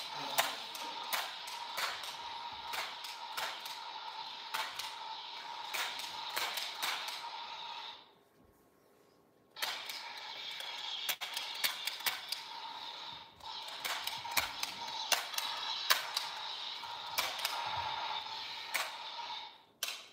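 Battery-powered toy drill running, a steady whir with rapid irregular clicking. It stops for about a second and a half partway through, then runs again.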